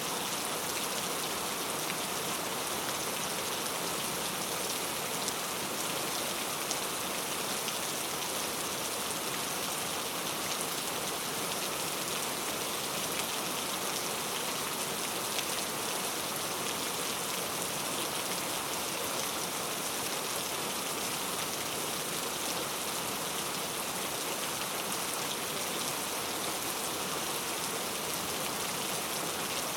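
Steady heavy rain falling on surfaces, an even hiss with occasional louder individual drops.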